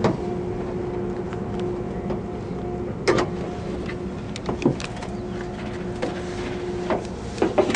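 A car hood being opened and handled: a few sharp knocks and clunks of the hood and its latch. A steady droning hum runs underneath.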